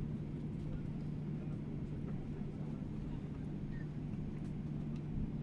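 Steady low drone of a jet airliner cabin, with the engines and air system running and a constant low hum.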